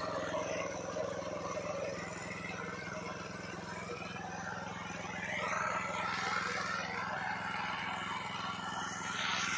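Engine of a ploughing machine running at a steady speed.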